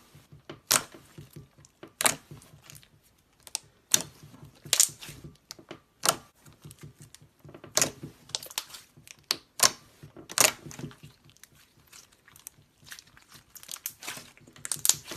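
Slime being poked and pressed by hand: short, irregular crackles and pops, a few each second, with quiet gaps between.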